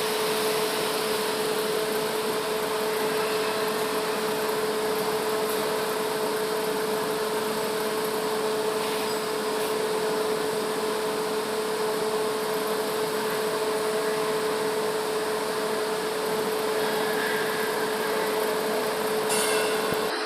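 Argon TIG welding arc burning steadily on carbon steel: an even hiss with a constant hum-like tone underneath, unbroken throughout.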